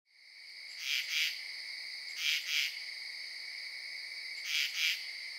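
Crickets chirping: a steady high trill fades in at the start, with a louder double chirp heard three times.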